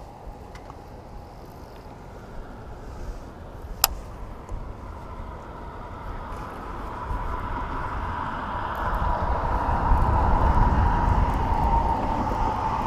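Engine noise of a passing motor vehicle, a low rumble with a steady whine, building over several seconds to its loudest near the end. One sharp click about four seconds in.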